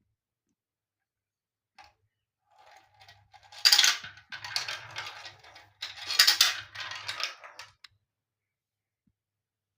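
Marbles rolling and clattering down a marble run track for about five seconds, with a low rolling rumble under the rattle and two loud bursts of clacking about two and a half seconds apart.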